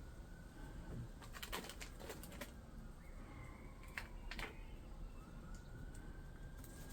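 Faint clicks and light taps of small brake-caliper seal-kit parts being handled and counted, in two short clusters, with a bird calling faintly in the background.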